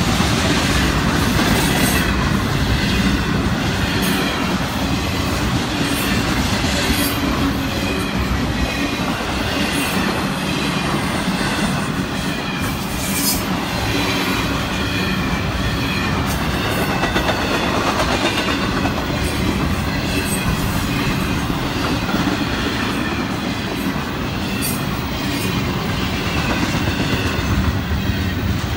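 Double-stack intermodal container cars of a Florida East Coast freight train rolling past: a steady rumble of steel wheels on the rails, with scattered clicks as the wheels cross rail joints and a faint wavering wheel squeal.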